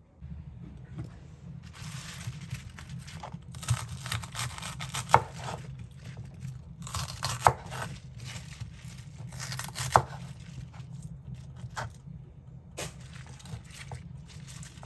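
Chef's knife slicing baby bok choy on a wooden cutting board: crisp crunching and leafy rustling, with three sharp knocks of the blade striking the board. A low steady hum runs underneath.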